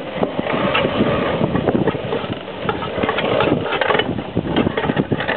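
Earll No. 8 trolley-pole retriever taking its rope back in under the pull of its wound tension spring: a steady mechanical clatter of dense, irregular clicks.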